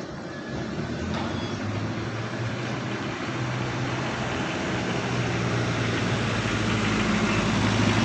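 A bus's diesel engine running steadily, its low note growing gradually louder.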